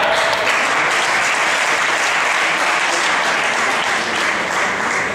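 Audience clapping at the end of a gymnastics routine, a steady patter of many hands.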